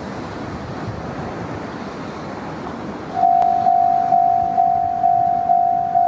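A steady rush of wind noise. About three seconds in, a Japanese railway level crossing's electronic warning bell starts: a single ringing tone struck a little more than twice a second, signalling an approaching train.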